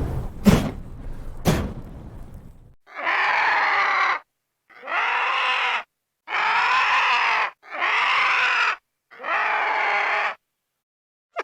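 Creature screech sound effect: a fading rumble with two sharp cracks, then five harsh, drawn-out screeching calls of about a second each, evenly spaced with short pauses between.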